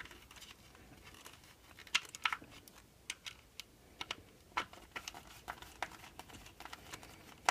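Scattered faint clicks and taps of a small precision screwdriver and screws against the RC truck's plastic chassis parts as the screws are put back in and started by hand.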